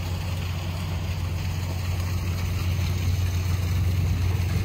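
Steady low engine hum at idle, growing slightly louder over the seconds.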